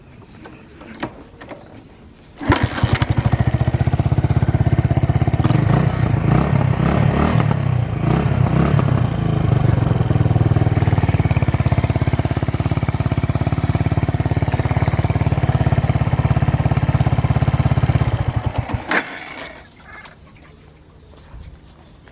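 Suzuki Grasstracker's single-cylinder engine starting about two seconds in and running with even, rapid pulses through a Supertrapp aftermarket full exhaust, then shut off near the end. No odd noises are heard, consistent with an engine in sound running order.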